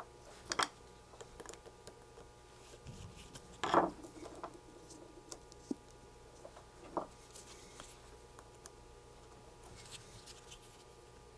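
Scattered small clicks and knocks of hands working a small metal test clip held in a bench vise, with louder knocks about half a second in, near four seconds and near seven seconds.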